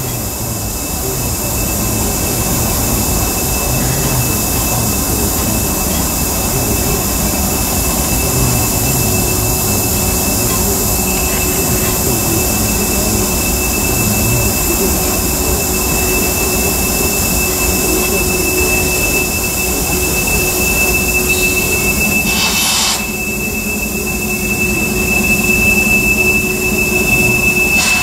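Freight cars of a manifest train rolling past with a steady rumble of wheels on rail. A thin, high, steady wheel squeal sets in partway through and grows stronger near the end, and a brief rushing noise comes about 23 seconds in.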